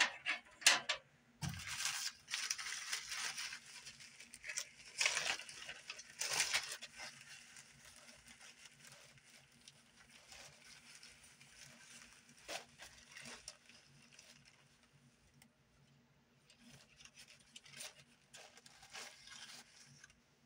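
Hands rustling and handling fire-lighting materials on a metal tray: short scrapes and crinkles, busiest in the first seven seconds, then sparse, with a few more near the end.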